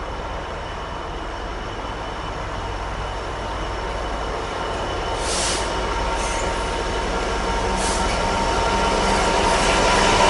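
Freightliner Class 66 diesel locomotive, with its two-stroke V12 engine, approaching at the head of a train of tank wagons, growing steadily louder as it nears. Two short hisses are heard about five and eight seconds in.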